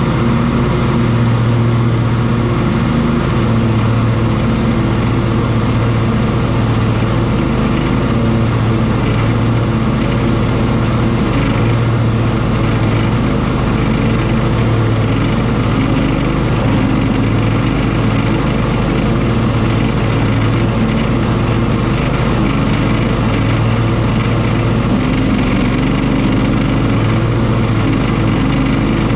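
Cub Cadet Enduro XT1 ST54 riding lawn mower engine running steadily, a loud, even low hum with no revving or change in load.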